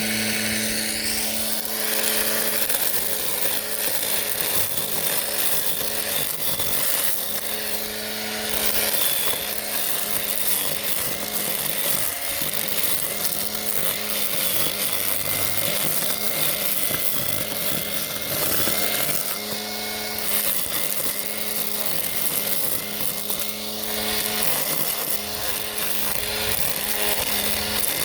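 Bauer angle grinder converted into a string trimmer, spinning trimmer cord at full speed and cutting thick fescue; the motor's steady whine dips slightly in pitch several times as the grass loads it.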